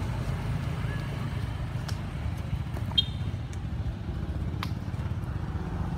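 Steady low rumble of motor traffic, with a few faint clicks and one sharper click about three seconds in.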